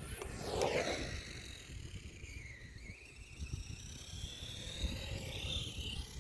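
Arrma Senton 3S RC short-course truck's brushless motor whining as it runs across grass. The whine drops steeply in pitch in the first second as the truck passes close, then rises and falls with the throttle. A low, uneven rumble runs underneath.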